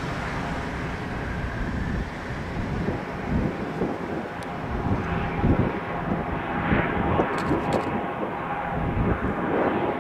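Twin Pratt & Whitney PT6A turboprop engines of a Cessna 425 Conquest I running at low taxi power: a steady propeller drone with a faint turbine whine over an uneven low rumble.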